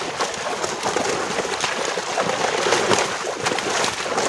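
Large fish thrashing and splashing in a seine net drawn into shallow pond water: a continuous churning of many splashes.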